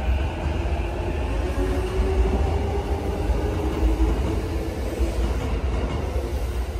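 JR East E233 series electric train pulling away along the platform track: a low rumble of wheels on rail with a faint motor whine over it, fading toward the end as it recedes.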